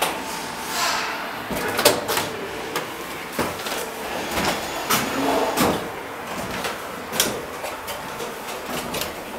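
Footsteps and irregular knocks and clicks on the wooden floor and fittings inside a vintage wooden tram car.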